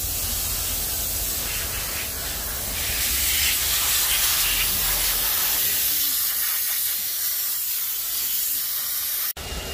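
Steady hissing noise with a low rumble beneath, cutting off abruptly near the end.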